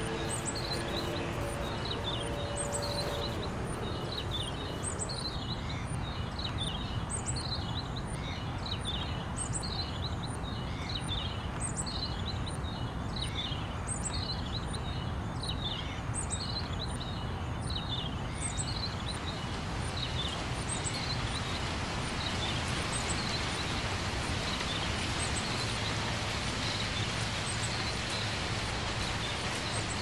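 Birds chirping, short high calls repeating every half second or so, over a steady rushing ambient noise. The chirps thin out after about twenty seconds while the noise grows hissier. A few held music tones fade out in the first three seconds.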